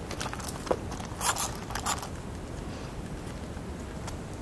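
Rustling and scraping of branches and leaves brushing against clothing and gear as someone climbs down through a tree, with a few light clicks early on and two louder rustles between one and two seconds in.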